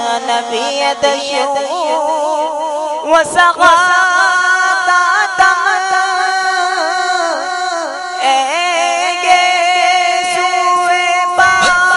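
Men singing a naat, Urdu devotional poetry in praise of the Prophet, amplified through microphones. The voices hold long, wavering, ornamented notes, with no steady beat.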